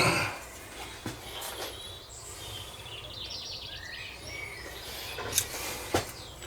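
A few light knocks and clicks of small metal parts being handled on a metal table, the first one near the start, with birds chirping faintly in the background.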